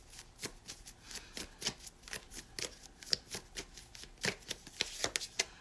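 A deck of tarot cards being shuffled by hand: quick, sharp card slaps and flicks at about four a second.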